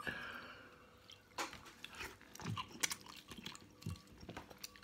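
A person eating spicy instant ramen noodle soup with chopsticks: quiet chewing and small wet sounds, with scattered little clicks from the chopsticks against the bowl.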